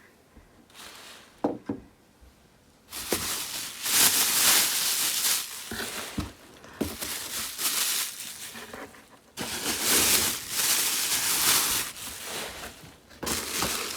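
Packaging crinkling and rustling as a gift is unwrapped by hand. The sound starts about three seconds in and comes in several long bursts, with a brief pause partway through.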